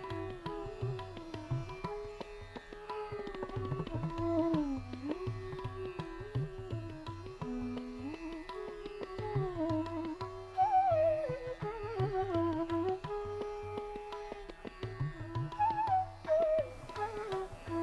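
Background music in Indian classical style: a gliding melody over a steady low drone with a light percussion beat.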